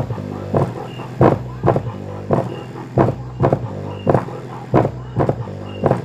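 Music with a steady beat and heavy low bass, played through a large bare woofer driven by a homemade two-4558-op-amp subwoofer filter and amplifier, its frequency control being opened up. The kick lands a little under twice a second over a steady low bass line.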